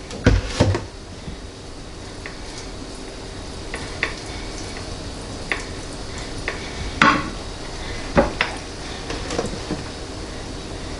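Clinks and knocks of a glass olive oil bottle and metal rotisserie spits against a glass baking dish and tiled countertop as oil is poured and brushed over a roast: two sharp knocks near the start, then scattered lighter clinks.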